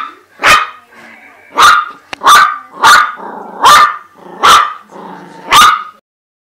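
Chihuahua barking loudly at a shed snake skin: about seven sharp, high barks roughly one every 0.7 s, with low growling between them, stopping about six seconds in.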